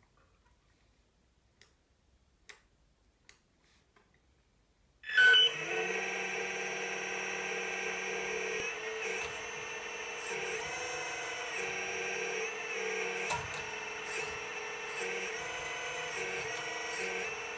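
Electric-driven hydraulic pump of a radio-controlled CAT excavator model starting about five seconds in with a brief loud burst, then running as a steady whine. From about nine seconds on its tone dips and steps several times as the boom, arm and bucket are worked.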